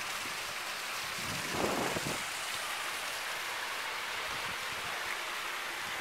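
Small boulder waterfall spilling into a pool: a steady rushing, splashing hiss of falling water, with a brief louder swell about a second and a half in.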